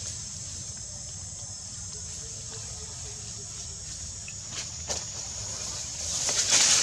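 Outdoor ambience: a steady high-pitched hum with a low rumble underneath, two short clicks a little before five seconds, and a louder noisy swell near the end.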